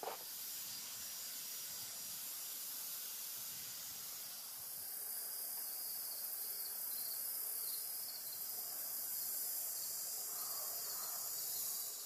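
Insects in a steady, high-pitched chorus, heard as an even hiss with no separate calls.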